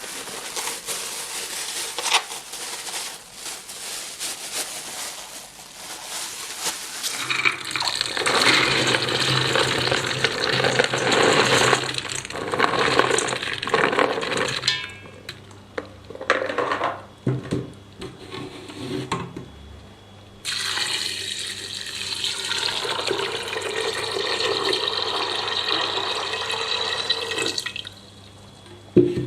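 Tap water running into a sink in two long runs, with broken splashing between them as things are rinsed. The flow cuts off abruptly near the end, followed by a sharp click.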